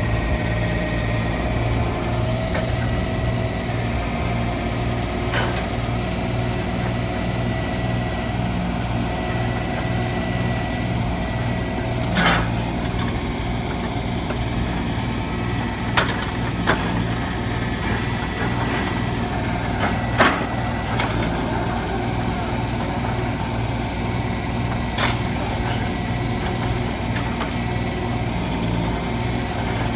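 Heavy engine of log-loading machinery running steadily with a whine over its low drone. A handful of sharp knocks from logs being handled cut in, the loudest about twenty seconds in.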